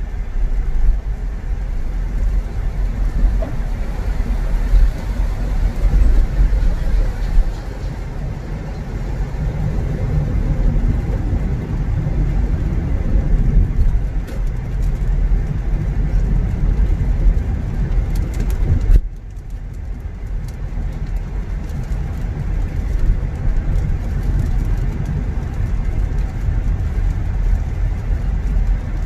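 Car driving along: a steady low rumble of road and engine noise. About two-thirds through, the noise drops suddenly and becomes quieter and duller.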